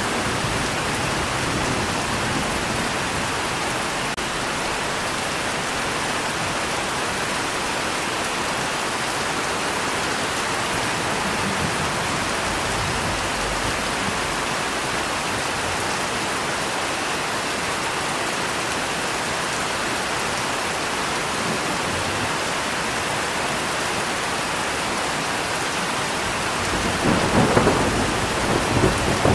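Steady rain falling, with a rolling burst of thunder near the end.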